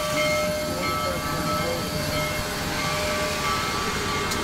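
Union Pacific Big Boy, a 4-8-8-4 articulated steam locomotive, pulling away slowly at close range: a steady churning rumble from the locomotive in motion, with a faint steady tone that fades out about halfway through.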